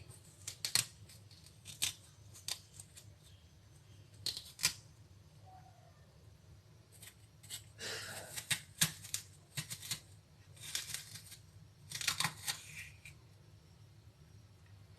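A utensil scraping and scooping out the core of a golden pear to hollow it: irregular short, sharp scrapes and clicks, bunched in a few clusters.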